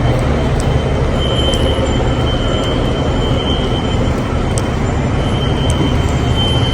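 Building fire alarm sounders going off, a high alarm tone sounding in short stretches at uneven spacing, as several devices are out of sync with one another. It plays over a loud, steady low rumble.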